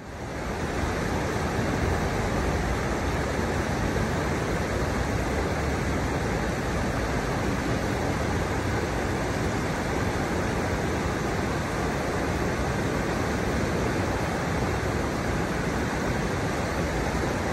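Shallow river water rushing over the low steps of its riverbed, a steady, even rushing noise that fades in over the first second.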